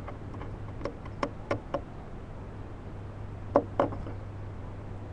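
A barn owl moving about inside its wooden nest box: sharp knocks and taps, four within the first two seconds and two close together about three and a half seconds in, over a steady low hum.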